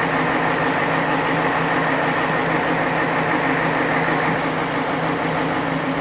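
A steady engine hum: constant low drone over even noise, with no change in speed.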